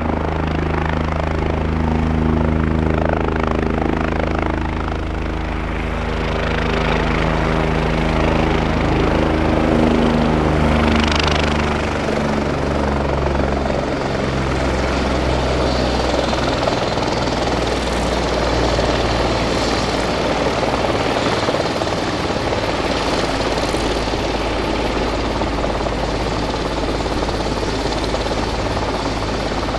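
Bell 427 twin-turbine helicopter running close by, with steady rotor and turbine noise. A low pitched hum in the first half fades out about halfway through, leaving an even rush.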